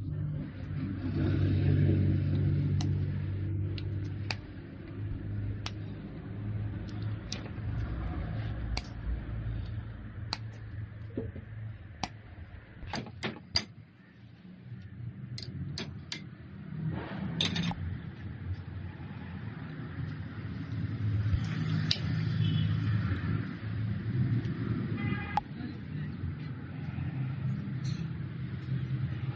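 Diesel engine running with a steady low hum and scattered clicks; it falls to its quietest about halfway through, then picks up again.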